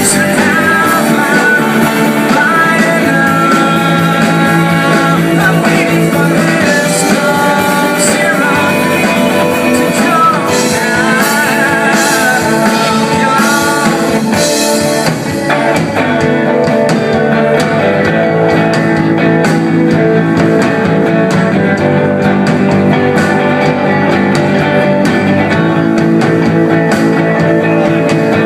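Live alternative-rock band playing, with a sung melody over guitars for about the first half. After a brief dip in level about halfway, the band plays on with steadier held notes.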